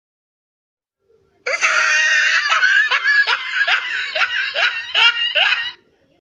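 A person laughing hard in a run of rhythmic 'ha-ha' pulses, about three a second, starting about a second and a half in and lasting about four seconds: a laughter sound effect.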